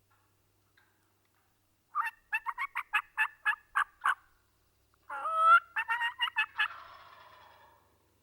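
Wild turkey calls: a run of about nine short, even yelps, then a loud gobble about five seconds in that rattles off and fades.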